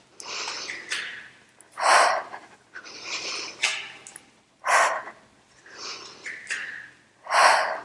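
A woman's hard breathing from exertion during dumbbell step-ups: a strong exhale about every two and a half seconds, three in all, with softer breaths in between.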